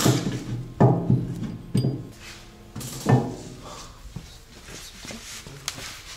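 Metal clanks and knocks from tools and steel parts being handled at a vehicle frame: three sharper knocks in the first three seconds or so, then lighter clicks.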